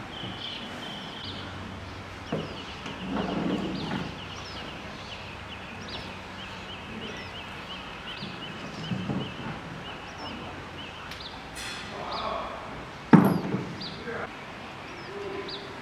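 Small birds chirping in quick repeated notes throughout, with a few dull thuds from a giant panda handling a red plastic toy cart; the loudest thud comes near the end.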